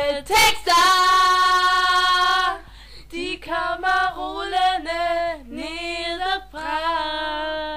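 Female voices singing a Danish credits song. They hold one long note about a second in, then move through shorter sung notes.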